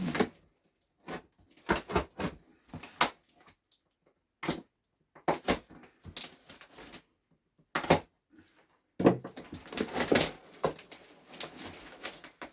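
A package being pulled and torn at by hand: scattered short crinkles, rustles and rips in irregular bursts, busiest about nine to ten seconds in.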